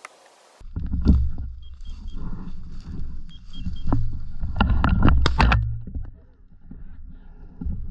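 Wind rumbling on the microphone, with irregular rustles and knocks from movement through field cover. A few faint short beeps sound about two seconds and three and a half seconds in.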